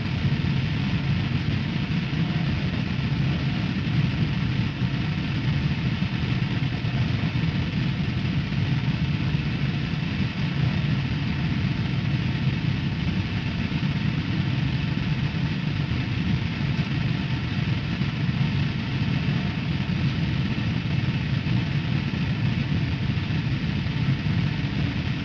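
A steady low rumbling drone with a hiss over it, running without change or break.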